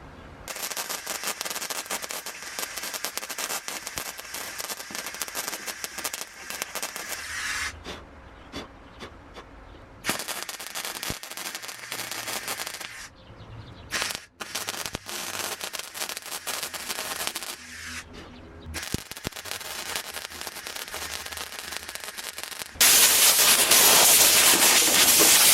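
Welder arc crackling in several bursts of a few seconds each, tack welding thin car-body sheet metal. Near the end a louder steady hiss of compressed air blowing.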